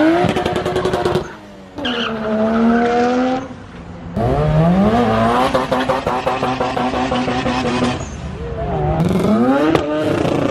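Turbocharged car engine accelerating hard: its pitch climbs and holds, then drops off abruptly when the throttle lifts. This happens about three times.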